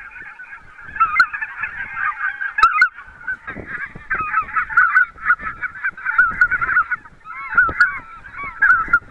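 Flock of greater white-fronted geese calling in flight, a dense, continuous chorus of high, yelping calls overlapping one another as the flock comes in.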